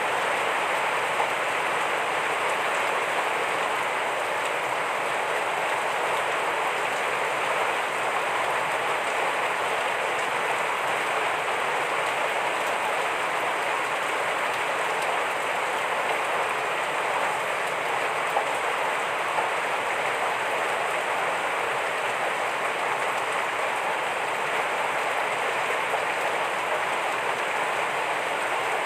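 Heavy rain falling steadily: a dense, even hiss of drops with an occasional sharper drop tick.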